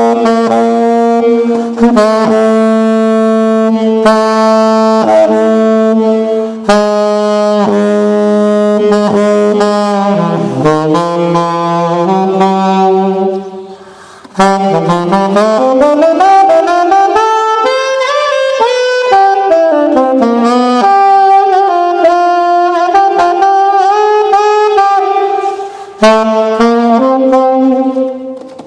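1927 gold-plated Martin saxophone playing a slow melody of long held notes. The pitch slides down around ten seconds in, and after a brief break it slides back up.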